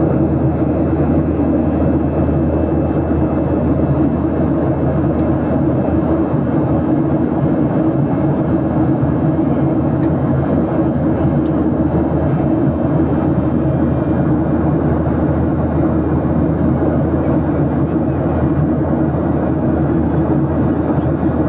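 Airplane drone: a steady, unchanging rush of engine and air noise, deep in pitch, with no rise or fall.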